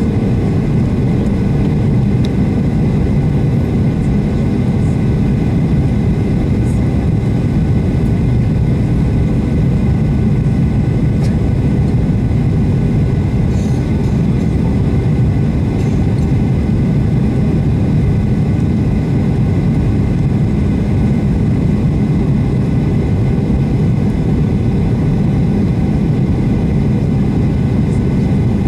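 Steady cabin roar of a Boeing 737-800 in descent, heard from inside the cabin: airflow and its CFM56-7B turbofan engines making an even, low noise with a faint steady whine over it.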